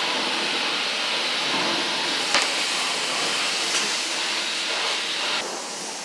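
Steady hiss of water spray at a car wash, with two short squirts of a hand trigger spray bottle about two and a half and four seconds in. The hiss eases shortly before the end.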